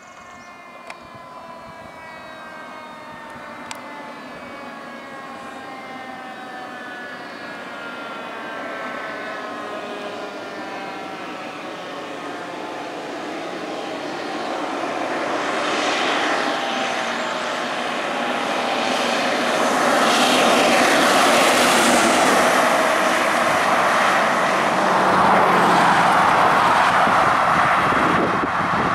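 Fire engine running code 3: its siren sounds with a pitch that slowly falls, while the truck comes closer and grows steadily louder. From about halfway through, the noise of the engine and road noise take over, loudest as the truck passes.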